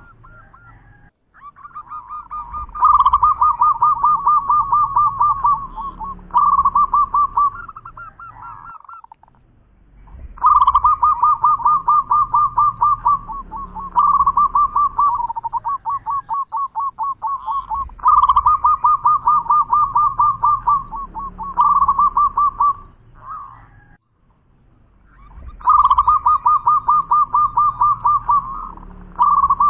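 Zebra dove (perkutut) singing: four long bouts of rapid, staccato cooing notes, each bout several seconds long, with short pauses between them.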